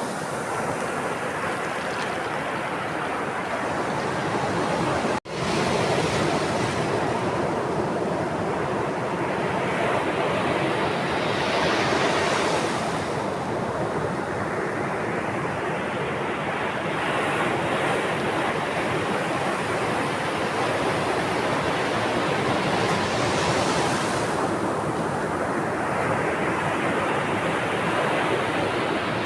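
Sea waves washing on a shore in a continuous surf. Two waves swell up and break, one in the middle and one near the end. About five seconds in the sound drops out for a split second.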